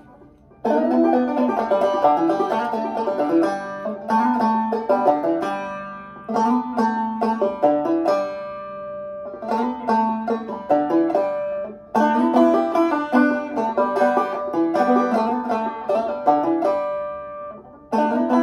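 Five-string banjo played clawhammer style: a quick run of melody notes and brushed chords. The phrases break off briefly about eight seconds in and again near the end.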